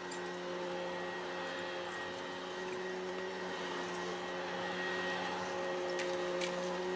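Upright vacuum cleaner running on carpet: a steady motor hum and whine over a rush of air, growing slowly louder.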